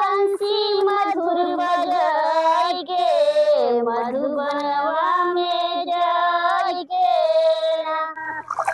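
Women singing a kajari, the monsoon folk song sung as a work song during paddy transplanting, unaccompanied, in long held, gliding phrases with two short breaks for breath, about a third of the way in and near the end.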